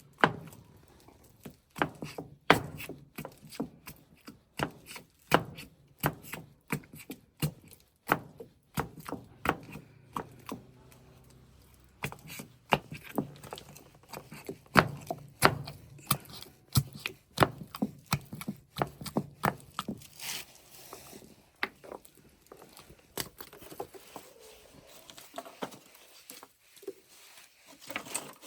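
Knife chopping food on a wooden cutting board: irregular sharp knocks, one to three a second, with short pauses.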